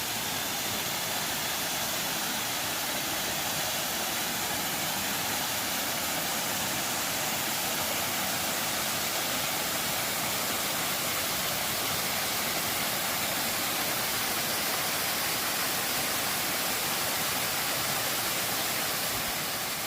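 Waterfall rushing steadily, water cascading over rock in an even, unbroken rush.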